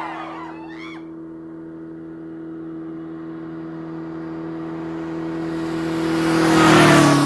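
A car approaches and passes by, its steady engine hum growing louder to a peak near the end and dropping in pitch as it goes past.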